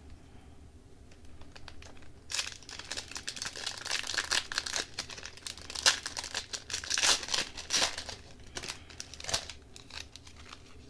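Wrapper of a Tim Hortons Upper Deck hockey card pack crinkling and tearing as it is ripped open by hand, starting about two seconds in with a run of sharp crackles and dying down shortly before the end.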